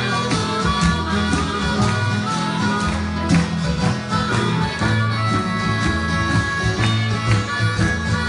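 Live rock band playing an instrumental passage with no singing, over a steady pulsing bass line.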